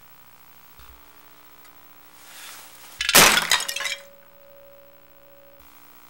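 A ceramic vase smashing against a table top about three seconds in, shattering into pieces with a sudden crash and about a second of clinking shards.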